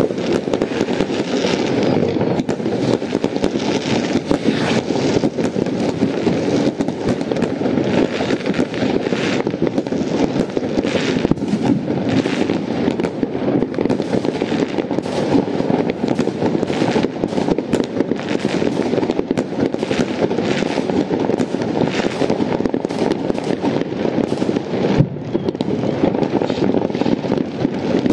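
Many fireworks going off at once all over a town, rockets bursting and firecrackers banging. Countless cracks and bangs run together into one continuous din with no pause.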